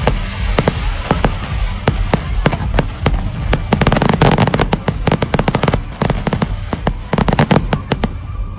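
Aerial fireworks going off: a rapid, irregular run of sharp cracks and pops over a steady low rumble. The crackling is densest about midway through and again near the end.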